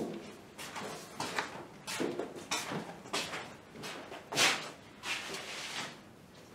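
Folded linen cloths being handled and sorted on a metal-topped table: a run of short rustles and light knocks, about one or two a second, the loudest about four and a half seconds in.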